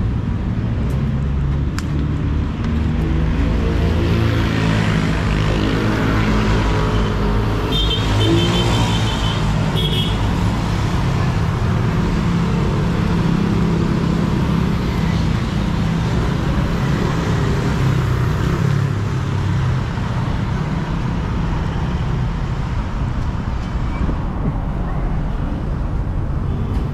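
Street traffic: vehicle engines running and passing in a steady rumble. A high, rapidly trilling tone sounds twice, about eight and ten seconds in.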